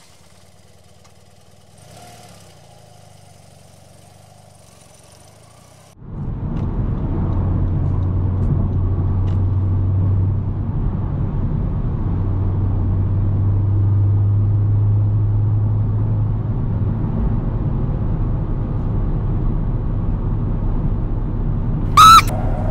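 Low, steady rumble of a car driving at night, heard from inside the cabin, coming in suddenly about six seconds in after faint street ambience. Near the end a woman lets out a loud scream over it.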